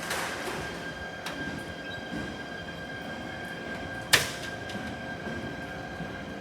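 Shinano Railway SR1-series train's sliding doors closing: a burst of air hiss at the start, a small click a little over a second in, and a loud sharp clunk about four seconds in as the doors shut, over a steady whine from the standing train.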